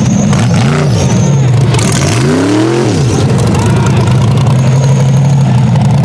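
Off-road racing buggy's small-block V8 engine revving hard in blips. Its pitch rises and falls twice, briefly about half a second in and again over roughly two to three seconds in, then holds steady at high revs.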